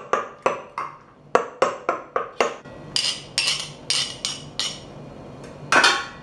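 Brass pestle pounding grilled tomato, garlic and onion in a brass mortar, sharp knocks about three a second. Then come several brighter ringing metal taps as a spoon scrapes the pestle, and a louder clatter near the end as the pestle is laid down.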